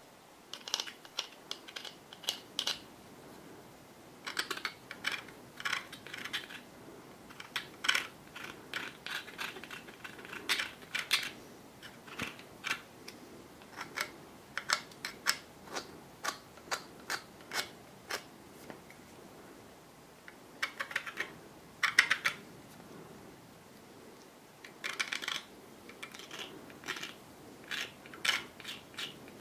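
Thin metal pick scraping and clicking in the gap where the blade meets the wood handle of a Case XX boning knife, working grime out of the joint. It comes as irregular clusters of quick, light clicks with short pauses between them.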